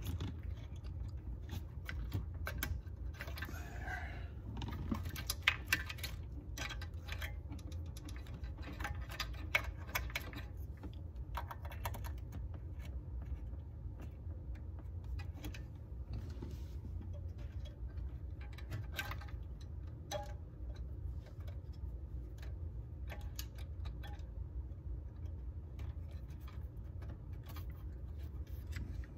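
Small plastic clicks and rattles of wiring-harness connectors, bulb sockets and wires being handled and pushed onto the back of a C3 Corvette's instrument cluster. The clicks are busiest in the first ten seconds or so and come sparser after. A low steady hum runs beneath.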